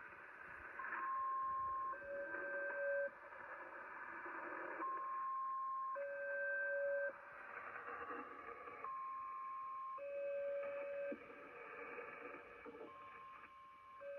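Shortwave transmission on 4635 kHz heard through a Kenwood TS-850SAT receiver: a repeating sequence of steady beeps about a second long, a single middle tone followed by a lower and a higher tone sounding together, the cycle coming round about every four seconds. Radio static hisses underneath.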